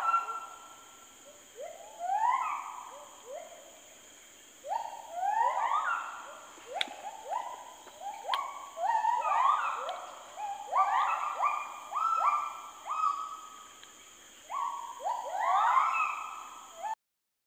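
Gibbon song: bouts of whooping notes that sweep up in pitch and level off, coming faster and overlapping in the middle stretch. The calls cut out abruptly near the end.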